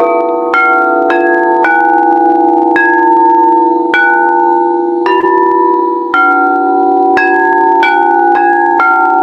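Singing bowls struck one after another, about once a second, at several different pitches. Each strike rings on and overlaps the last, building a continuous layered ringing.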